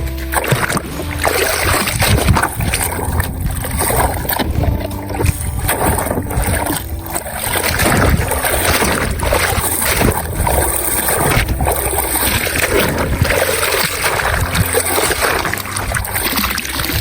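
Water splashing and sloshing as a toy vehicle is washed by hand, with background music underneath.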